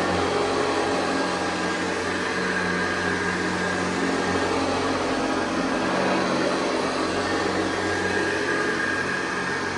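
1964 Hoover Convertible Model 584 upright vacuum cleaner running steadily, its motor giving a constant hum under a broad rushing of air.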